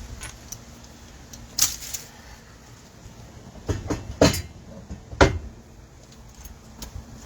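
A few sharp metal clanks and knocks, the two loudest about four and five seconds in, from tools and parts handled while a small engine's flywheel is being changed.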